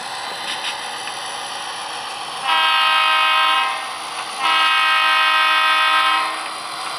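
HO scale sound-equipped Santa Fe diesel locomotive model sounding its multi-chime horn twice through its small onboard speaker, a shorter blast then a longer one, over the steady running sound of the model's diesel engine.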